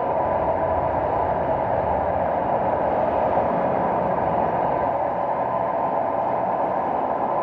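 Steady city traffic noise: a dense, even rumble of passing vehicles with no clear change.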